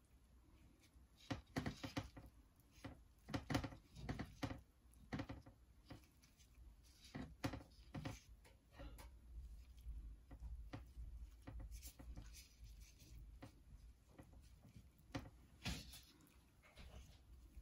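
Scattered light clicks and knocks of kitchen utensils and dishes being handled, busiest in the first few seconds and again briefly near the end.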